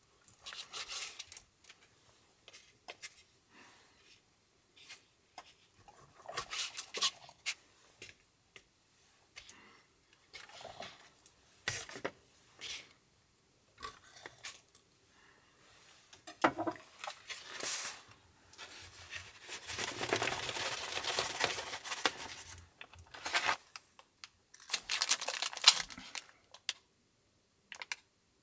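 Kitchen knife cutting boiled octopus into small pieces on a cutting board, in irregular soft cuts and taps, with the pieces being handled. A longer stretch of rubbing noise comes about two-thirds of the way through, and a louder burst of rustling a few seconds before the end.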